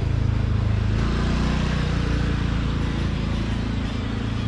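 A motor vehicle's engine running close, its note shifting about a second in, over the noise of street traffic.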